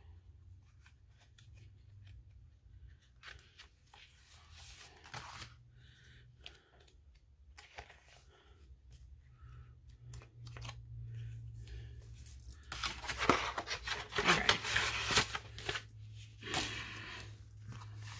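Paper rustling and crinkling as a kraft envelope and a stack of sticker sheets are handled. Faint scattered rustles and clicks come first, then loud rustling in the last third.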